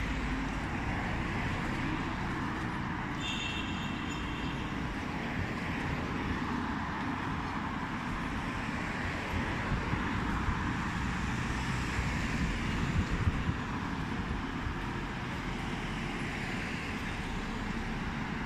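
City street traffic: a steady wash of car engines and tyre noise. About three seconds in there is a brief high-pitched beep.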